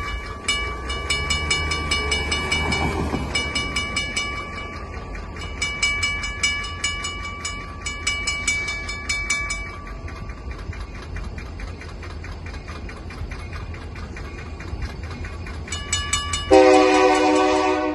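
Grade-crossing bell ringing rapidly and steadily over the low rumble of an approaching diesel locomotive. Near the end the lead locomotive's Nathan K3LA five-chime air horn sounds, the loudest thing heard.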